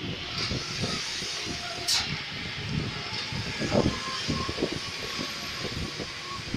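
Steady road and engine noise of a moving vehicle, heard from inside, with irregular low thuds and rattles as it goes over bumps.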